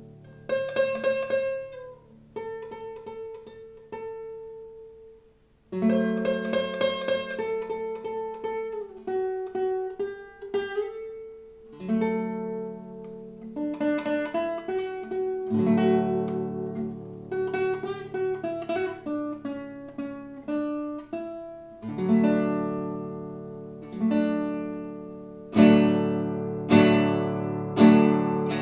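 Solo classical guitar playing a slow melodic passage of plucked notes. The sound dies away into a brief pause about five seconds in, then the playing resumes, with louder plucked chords near the end.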